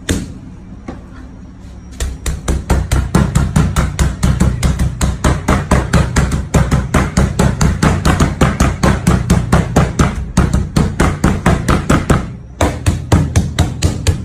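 Meat mallet pounding ground beef flat under plastic wrap on a stainless steel counter: one blow at the start, then a fast, even run of blows about five a second, broken by a short pause near the end before it resumes.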